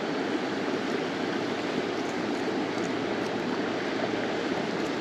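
Steady rush of running water, even throughout, with a few faint ticks.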